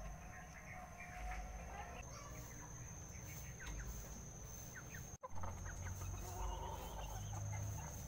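Chickens clucking softly over a steady high-pitched whine and a low background rumble. The audio cuts out for an instant a little past halfway.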